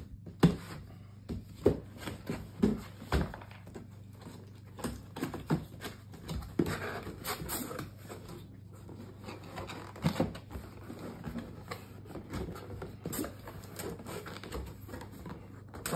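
Cardboard packaging being opened and handled: irregular knocks and thuds from the box and its flaps, with stretches of cardboard scraping and rustling.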